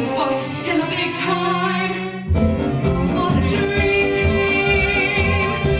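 A woman sings a Broadway show tune with a pit orchestra that includes bowed strings. A little over two seconds in, the band kicks into a brisk beat with drums while she holds a long note.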